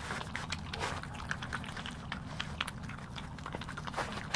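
European badgers crunching and chewing peanuts: a quick, irregular run of crunches and clicks.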